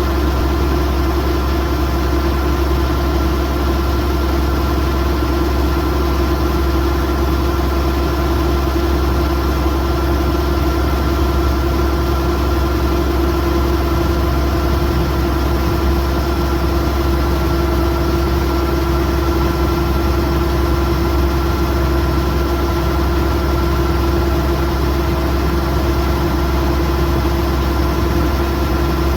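Kubota DC108X combine harvester's diesel engine and machinery running steadily at constant speed, a deep hum with a steady mid-pitched drone.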